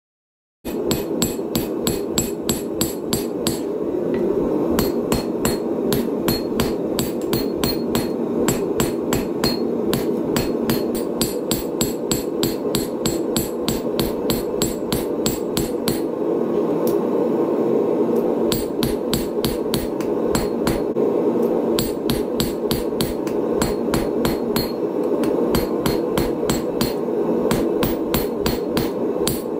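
Hand hammer striking a red-hot steel blade blank on a chain-wrapped anvil while forging it, about three sharp blows a second with a few short pauses, starting about half a second in. A steady rushing noise runs underneath.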